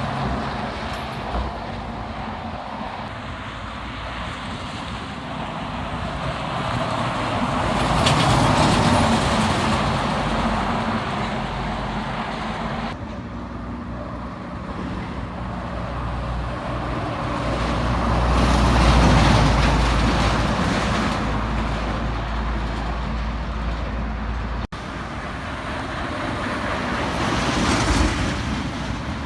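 Heavy trucks passing one after another on a highway, each pass-by swelling to a peak of engine and tyre noise and then fading, about three times. The sound changes abruptly twice along the way.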